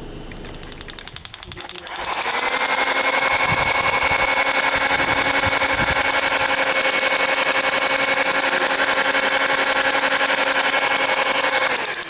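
Honda Fit's L15A four-cylinder engine revved up about two seconds in and held at a steady raised speed with a rapid, even pulsing, then let back down near the end. This engine misfires when the throttle is opened.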